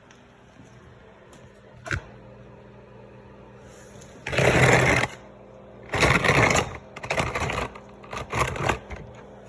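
Worn wheel bearing grinding in four short bursts, each under a second long, starting about four seconds in. A single click comes just before two seconds in.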